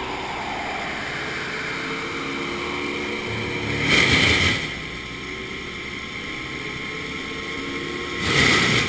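A machine's engine running steadily, with two louder, rushing surges about four seconds apart.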